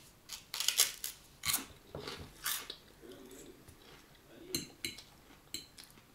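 Eating at a table: a metal fork clinking and scraping on a plate in a string of sharp, uneven clicks, with chewing between them.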